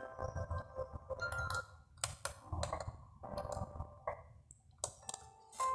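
Repeated clicks of the faceplate buttons on an H-Buster HBD-7200MP car CD receiver, about one or two a second. Between the presses come short snatches of music from the disc.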